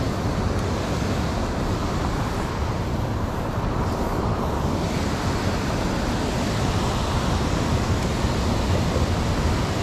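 Steady rush of water pouring down a stone spillway, mixed with wind buffeting the microphone.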